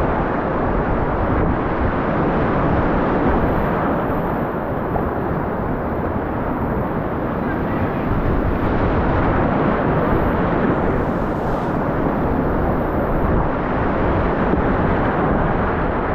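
Whitewater rapids rushing close around a kayak: a steady, loud noise of churning river water.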